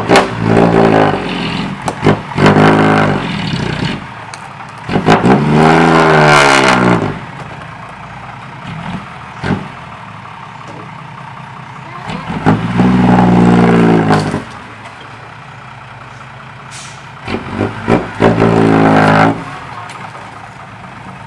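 Six-wheel dump truck's diesel engine revving in about five separate bursts, each rising and falling in pitch, with the engine running at a lower steady level between them.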